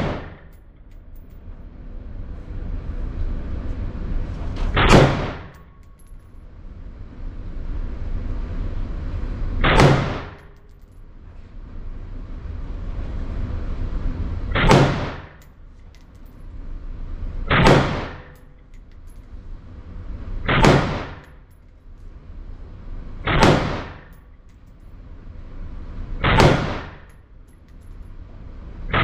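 Ruger AR-556 MPR, a 5.56 NATO AR-15 rifle, fired semi-automatic in slow single shots: about seven sharp reports, the first ones some five seconds apart, the later ones about three seconds apart.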